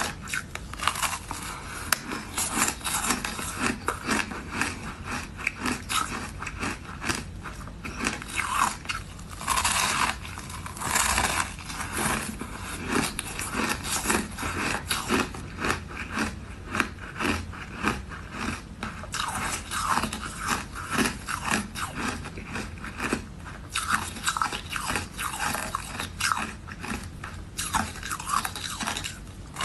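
A person biting off and chewing mouthfuls of a frozen flavoured ice block, with continuous crisp, crackly ice crunching.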